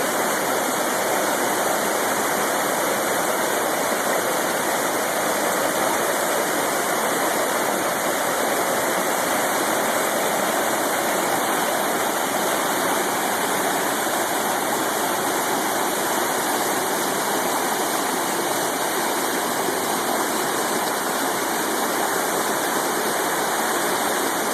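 Mountain creek cascades rushing steadily, an unbroken roar of falling and tumbling water.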